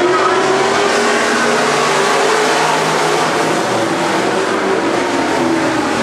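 A pack of dirt-track stock cars racing, several engines running hard at once, their pitches rising and falling over one another.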